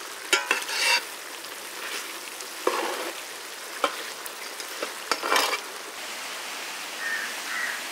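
Fish in masala gravy bubbling and hissing in a large iron kadai, with a steel ladle stirring through it. The ladle scrapes and knocks against the pan four or five times.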